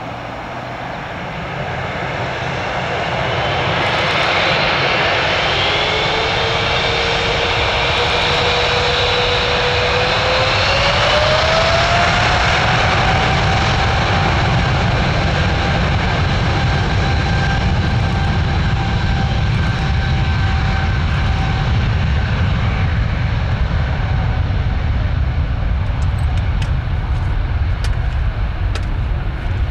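Boeing 777-200F freighter's twin GE90 turbofans at take-off thrust: a deep, steady rumble that swells over the first few seconds, with an engine whine that climbs in pitch about ten seconds in and then holds.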